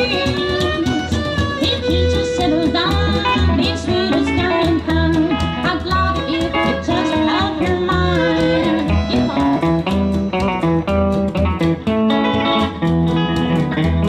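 Live country band: a woman singing lead over electric guitar, with a steady drum beat and bass.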